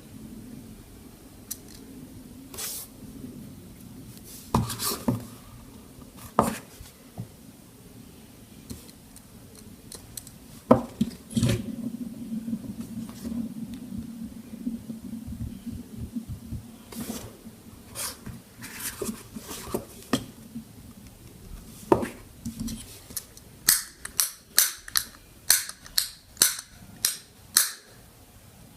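Plastic clicks from a fidget cube's buttons and switch: scattered single clicks, then a quick run of about three clicks a second near the end.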